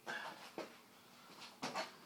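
A person moving about and handling things: a few short knocks and shuffling sounds, the loudest at the very start and a cluster of sharp ones about one and a half seconds in.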